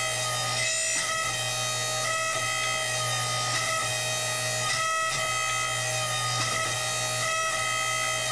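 Background music with a steady low drone under held melody notes that change about once a second.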